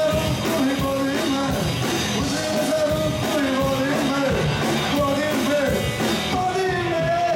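A rock band playing live, with a sung vocal line over guitars and drums.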